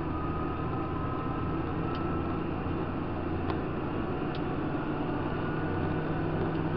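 Tractor's diesel engine running steadily as it drives along the road: an even low drone with a faint higher whine and a few light ticks.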